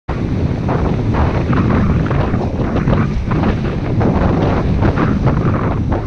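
Wind buffeting a helmet-mounted GoPro microphone as a mountain bike descends a dirt trail at speed, under a steady rumble of tyres on the ground and frequent short rattles and knocks from the bike over bumps.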